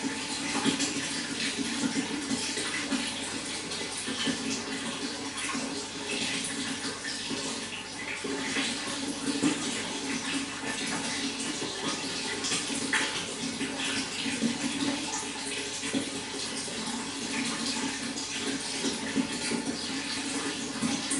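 Running water flowing and splashing steadily, with many small sharp splashes over an even rushing sound.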